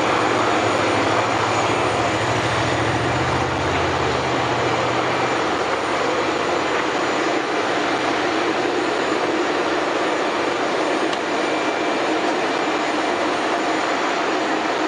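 Military transport aircraft's engines running on the airfield apron: a loud, steady rushing noise with a faint high whine. A lower hum underneath fades out about five seconds in.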